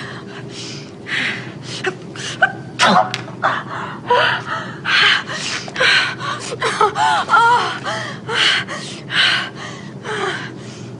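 A person sneezing over and over with sharp gasping breaths, in quick breathy bursts about two a second. There are a few high-pitched moans and whimpers in the middle.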